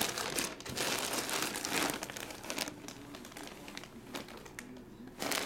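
Clear plastic poly bag crinkling as hands press on it and turn a bagged basketball jersey: irregular rustles, busiest in the first two seconds and fainter after.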